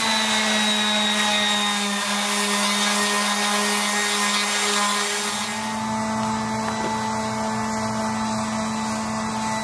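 Corded Milwaukee random orbital sander running steadily against carved wood, a constant hum with a whirring rub; the tone shifts slightly a little past halfway.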